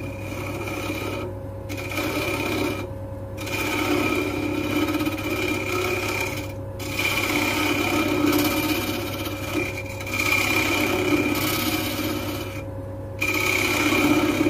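Wood lathe running with a steady motor hum while a turning tool cuts the spinning wooden lid. The cut comes in passes with a scraping, ringing sound, and it breaks off briefly four times as the tool is eased off the work.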